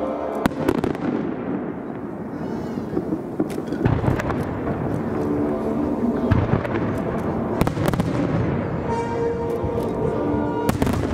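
Aerial firework shells bursting in irregular sharp bangs, a dozen or so, with the show's music playing underneath.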